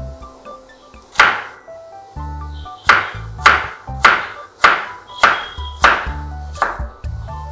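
Kitchen knife chopping peeled potatoes into small cubes on a wooden cutting board: a string of about eight sharp chops, roughly two a second through the middle, over background music.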